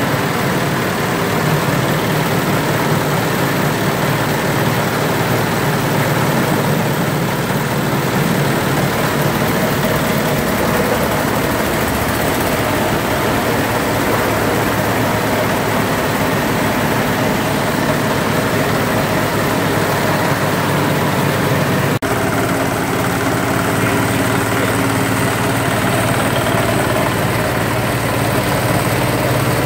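Several small stationary diesel engines running together, each driving a forage chopper, with a steady mechanical din as green grass is fed in and shredded.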